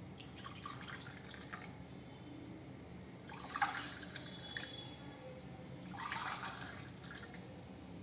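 Hot kadha, an Ayurvedic herbal decoction, being poured into a glass: faint trickling and dripping in two short spells, about three and six seconds in.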